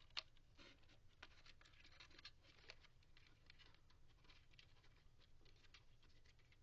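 Faint scratching and irregular small clicks of twist ties being untwisted and worked loose from a cardboard toy tray, with one sharper click just after the start.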